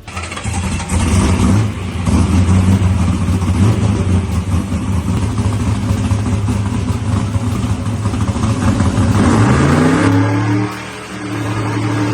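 Race car engine running loud and steady, then revved about nine seconds in, its pitch rising before it settles again.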